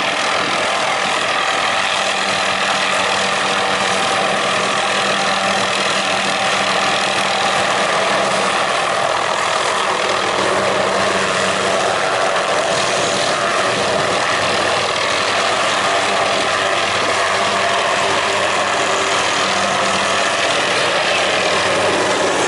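Helicopter running steadily, a continuous engine and rotor sound with a low even hum that does not change.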